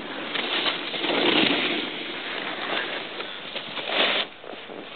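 Snowboard edge scraping and hissing across the snow as the rider carves turns, swelling about a second in and again near four seconds, then cutting off sharply.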